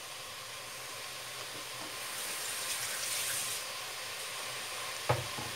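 Chopped spinach sizzling and steaming in hot olive oil in a steel saucepan, a steady hiss that grows a little stronger in the middle. A single sharp knock comes about five seconds in.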